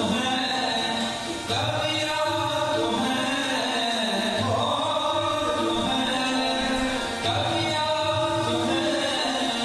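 Sikh devotional hymn singing (Gurbani kirtan): voices chanting a slow, sustained melody with musical accompaniment.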